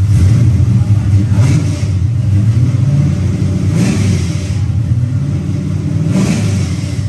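Chevrolet V8 in a first-generation S10 pickup running at idle and blipped by hand at the throttle three times, the revs rising and falling back about every two and a half seconds.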